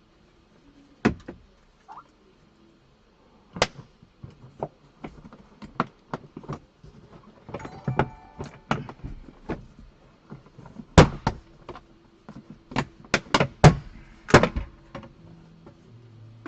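Irregular sharp knocks and clunks of parts and tools being handled while a Tesla is taken apart, with one loud knock about two-thirds of the way through and a quick run of knocks near the end.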